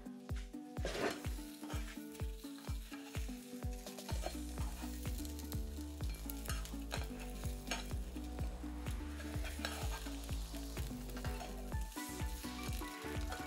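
Food sizzling as it fries in a hot pan and is stirred. Background music with a steady beat plays throughout, its bass growing heavier about four seconds in.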